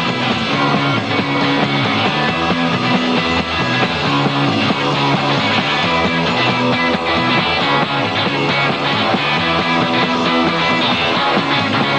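Rock band playing live, an instrumental passage with electric guitar over a repeating bass line and steady drums.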